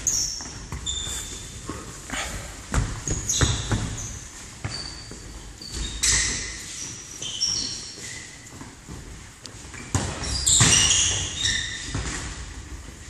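Indoor football in a sports hall: the ball being kicked and bouncing in irregular echoing thuds, with short high squeaks of trainers on the hall floor.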